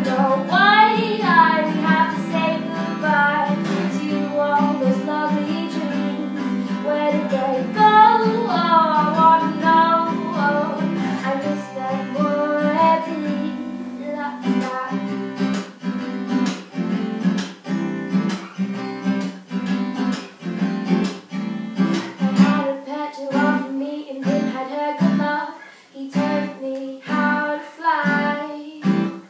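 A woman singing to her own strummed acoustic guitar. About halfway through, the ringing chords give way to a choppier, stop-start strumming rhythm under the voice.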